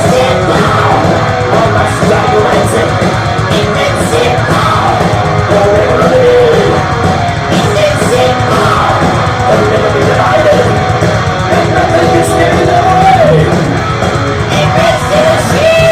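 Heavy metal band playing live at full volume: distorted electric guitars and drums under high, yelled vocals, with pitch-bending melodic lines over the steady wall of sound.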